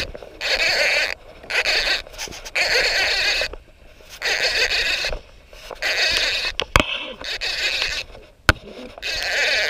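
Baitcasting reel cranked in short repeated bursts, a whirring retrieve that starts and stops about every second and a half as a topwater lure is worked, with two sharp clicks in the second half.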